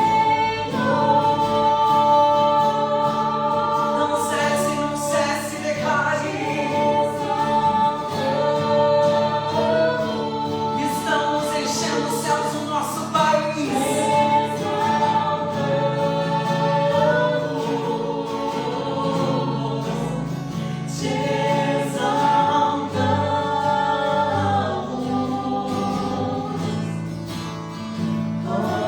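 Christian worship music: a group of singers holding long sung notes over a steady instrumental accompaniment.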